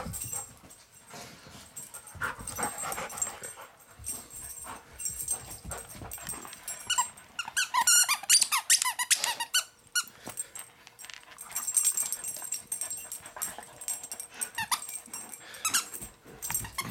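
Plush squeaky dog toy squeaking as a dog chews it, in quick runs of short squeaks that are thickest about seven to ten seconds in.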